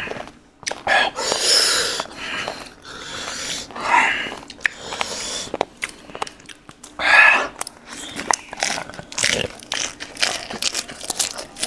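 Eating sounds: a person biting and chewing food, with fresh lettuce leaves rustling as they are wrapped and small clicks as food is handled.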